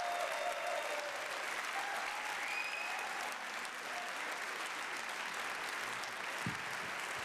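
Audience applauding, with a few voices over it and a single low thump near the end.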